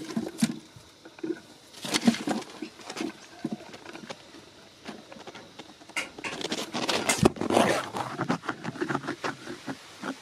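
Leaves and stems rustling and crackling close to the microphone, in a burst about two seconds in and a denser run from about six seconds on.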